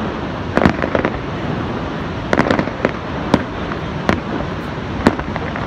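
Fireworks going off overhead in a string of sharp bangs and crackles at irregular intervals, some in quick clusters, over a steady rushing noise.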